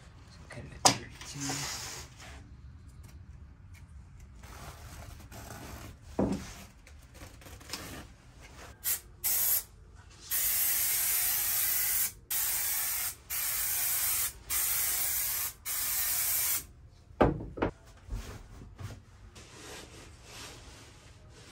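Aerosol spray adhesive hissing from the can in bursts: two short puffs, then five longer sprays of a second or two each with brief gaps. A sharp knock comes about a second in, and a few thumps follow the spraying.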